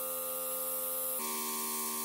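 Background music: a sustained chord that changes to another about a second in.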